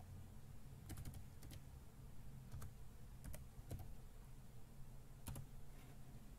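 Faint computer keyboard keystrokes, a few scattered clicks spaced irregularly, over a steady low hum.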